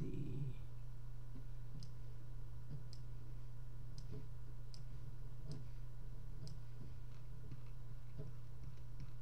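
Computer mouse clicking about once a second, unevenly, over a steady low electrical hum.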